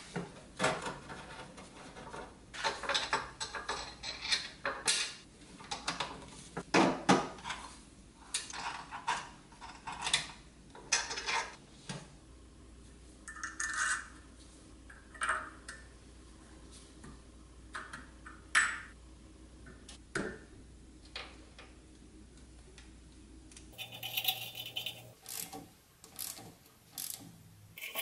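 Small steel toy parts clinking, tapping and scraping as they are fitted together by hand during reassembly of a restored Nylint Traveloader: an axle rod slid through the frame, then a spring and bolt handled on a steel bench vise. A few of the taps ring briefly.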